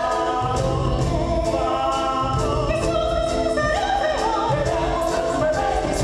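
Several voices singing together over instrumental accompaniment, a musical-theatre number.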